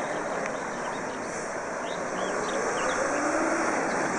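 Road noise from a large cargo truck driving past: a steady rushing of engine and tyres, with a faint engine tone showing in the second half. Birds chirp lightly throughout.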